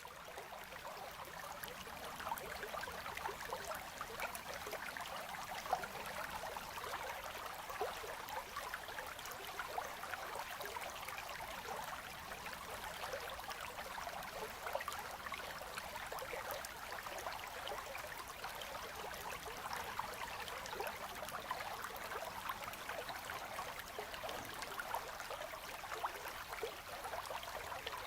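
Gentle river current flowing past ice, a steady trickling and babbling of water.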